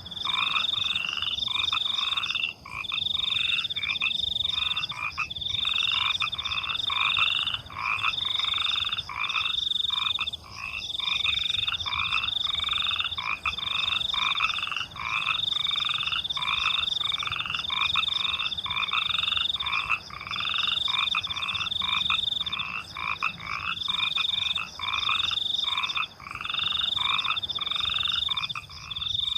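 A chorus of frogs croaking in a steady repeating rhythm, about one and a half calls a second, over a continuous high chirring trill of crickets.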